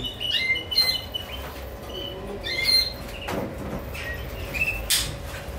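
Caged canaries giving short, scattered chirps, with a few sharp clicks, the loudest near the end.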